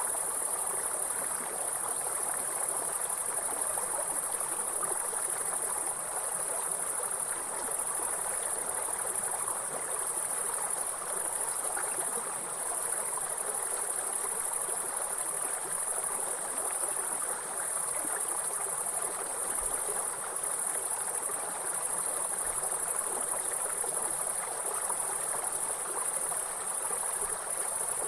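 Grasshoppers trilling in a continuous high-pitched drone over the steady rush of a flowing river.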